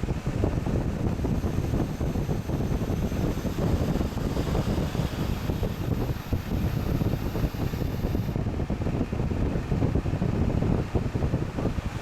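Haier JA-SP25G spot air conditioner running, its fan blowing a steady stream of air that buffets the microphone with a low, fluttering rumble.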